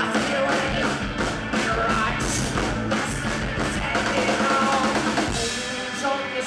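Live rock band playing: two electric guitars, bass guitar and a drum kit, with steady snare and cymbal strokes. The low bass thins out about five seconds in.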